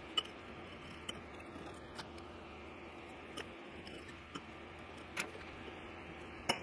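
Faint scattered clicks and light metal taps, about seven in all, from dividers and a marking pen being handled and touched against a steel tube on a wooden workbench while cut lines are marked out, over a steady low hiss.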